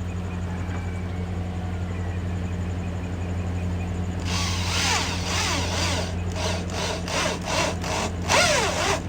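Power drill driving screws into a desert air cooler, in repeated short trigger bursts whose pitch rises and falls, starting about four seconds in and coming about twice a second near the end. A steady low hum sits underneath.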